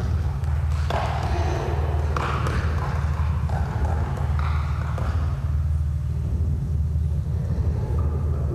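Deep, steady rumbling drone with a slight pulse, overlaid by several patches of rushing, scraping noise that cut in abruptly and fade, like an ambient sound score for a dance performance.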